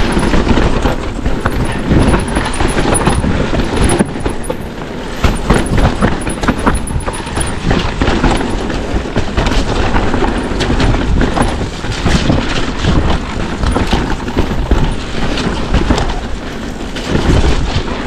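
Mountain bike riding down a rough, rocky trail at speed: tyres over loose shale, with a continuous low rumble and a constant clatter of knocks and rattles from the bike.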